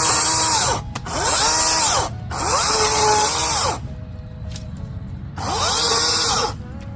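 Ego battery-powered chainsaw run in four bursts of about a second each. Its electric motor whines up and back down with each squeeze of the trigger while cutting small trees.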